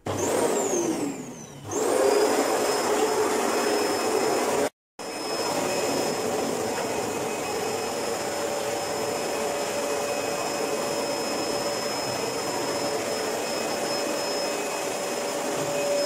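A canister vacuum cleaner's motor running with a steady high whine. Its pitch falls over the first second or two, then climbs back and holds steady, with a brief break about five seconds in.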